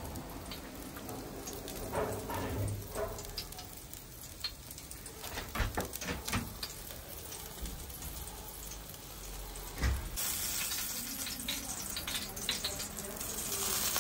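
Chicken pieces sizzling and crackling on a De'Longhi electric grill, with many small pops. The sizzle grows louder about ten seconds in.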